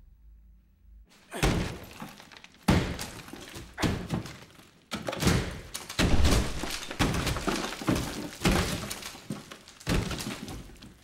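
Sledgehammer blows smashing into a plaster wall, about one heavy strike every second or so starting about a second in, each followed by crumbling and falling plaster.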